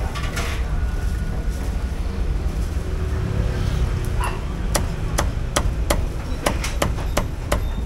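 Meat cleaver chopping cooked stewed duck on a thick wooden chopping block: about eight sharp chops at two to three a second, starting about halfway through, over a steady low background rumble.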